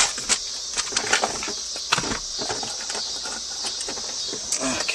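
Scattered short clicks and knocks over a steady high-pitched hiss.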